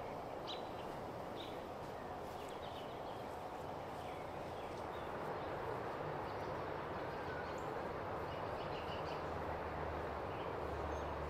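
Outdoor yard ambience: a steady background hiss with faint, scattered bird chirps. A low hum comes up near the end.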